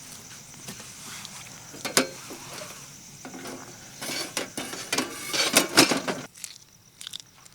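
Clinks and knocks of camp cooking pots and utensils being handled, with a busy run of knocks and rattles about four to six seconds in.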